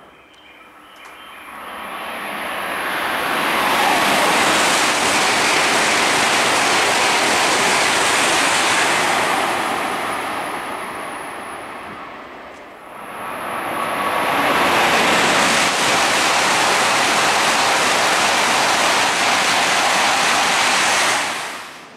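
Tohoku Shinkansen bullet trains (E5 and E6 series) passing through stations at about 240–265 km/h. There are two long rushing pass-bys, each swelling to a steady loud rush and then fading, and the second cuts off suddenly near the end.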